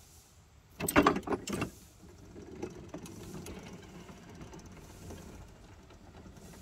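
A short burst of metallic clanks about a second in as the miniature train starts off, then the electric test locomotive's traction motor and the cars rolling slowly on the rails with a steady low rumble and hum.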